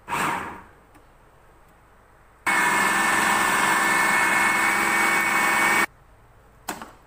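Electric food processor motor grinding a thick mix of cooked beef, chana dal and egg. It gives a brief pulse at the start that winds down in pitch. About two and a half seconds in it runs steadily for about three and a half seconds with a high whine, then cuts off suddenly, followed by a single click near the end.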